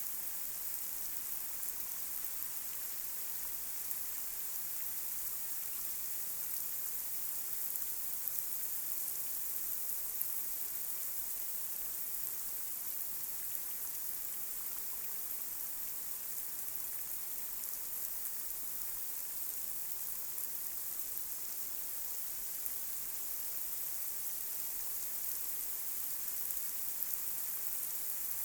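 Light rain falling on a street: a steady, even hiss with many small drop ticks and patters, unchanging throughout.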